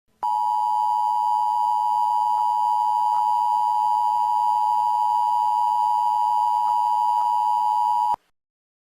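Emergency Alert System–style attention tone: a steady electronic tone near 1 kHz, switched on abruptly and cut off sharply after about eight seconds.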